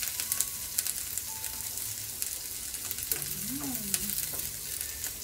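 Cabbage, onion and chicken sizzling in a frying pan as they are tossed with tongs, with light scattered clicks of the tongs against the pan.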